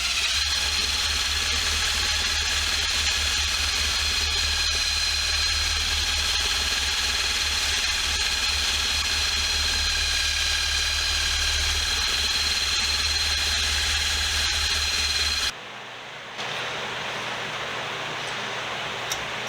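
Bench-top electric power tool running steadily, a motor hum with a thin high whine, which cuts off abruptly about 15 seconds in; a quieter steady hiss follows.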